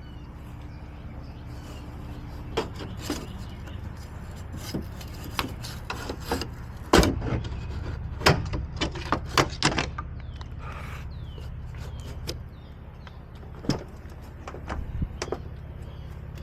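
Scattered clicks, taps and knocks of a locksmith's lockout tools working at a car door, over a steady low hum. The knocks come thickest in the middle.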